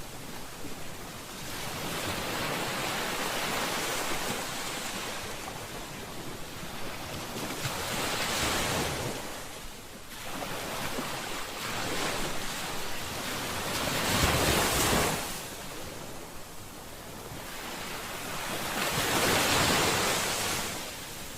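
Ocean waves breaking and washing on a shore, swelling and ebbing about every five to six seconds, loudest near the end.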